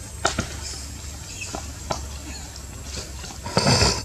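Monkeys moving about on a metal platform: a few light knocks, then near the end a loud, harsh, cough-like burst lasting about half a second.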